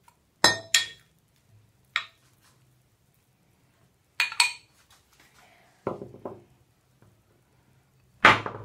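A serving spoon clinking and knocking against a glass bowl and a container as sliced banana is scooped in: several separate knocks, the loudest near the end.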